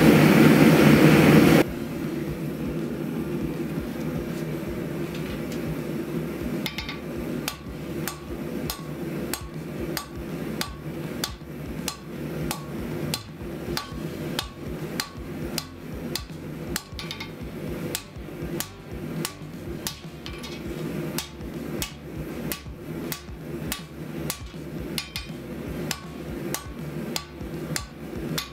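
A loud steady forge noise for about the first second and a half, then a quieter steady hum. From a few seconds in, a hand hammer strikes red-hot 5160 steel on the anvil in a steady rhythm, drawing out the blade's tip.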